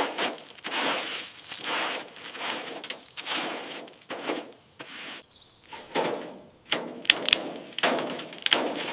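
Rough rubbing strokes, about two a second at an uneven pace, with a few sharp clicks near the end, typical of hand work scrubbing or scraping a dirty surface.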